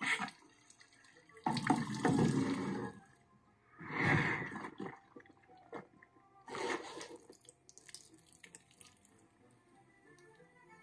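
Water gushing and splashing from a sink tap in four short bursts, about two seconds apart.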